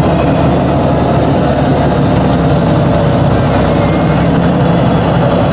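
Off-road trial truck's engine running under load at a steady pitch as the truck crawls through mud.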